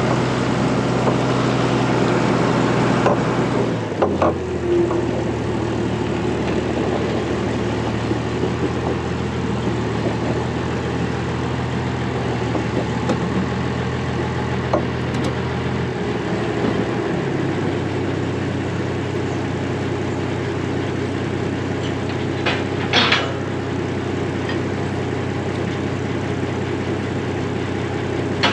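Diesel engine of heavy harvest machinery running steadily. Its note drops about four seconds in and shifts again a little after sixteen seconds. A few brief clicks and a short rattle come near twenty-three seconds.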